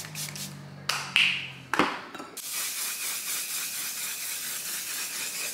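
Makeup setting spray misted onto a face to fix the makeup: two short spray puffs, then a steady spraying hiss lasting about three seconds.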